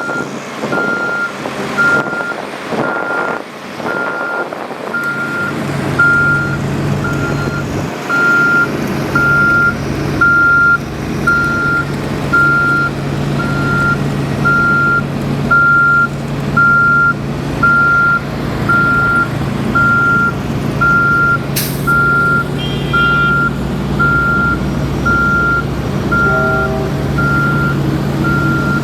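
Heavy construction vehicle's reversing alarm beeping steadily about once a second, over a diesel engine running at a steady pitch that grows louder about six seconds in.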